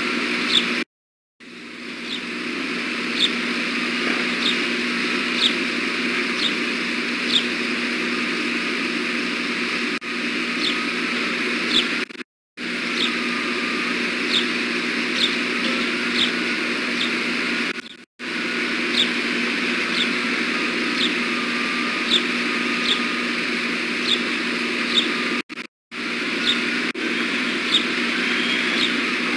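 Steady hum of distant road traffic and machinery picked up by the nest-cam microphone, with short high chirps repeating about one and a half times a second. The sound cuts out completely for a moment several times.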